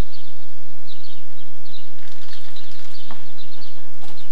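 Birds chirping outdoors: many short, high chirps at irregular intervals over a steady hiss, with a single sharp knock about three seconds in.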